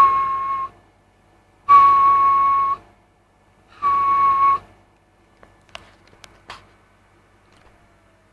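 Three steady, single-pitch whistles into a transceiver's hand microphone while transmitting, a standard whistle test of SSB output power. The whistles are about a second each and are followed by a few sharp clicks.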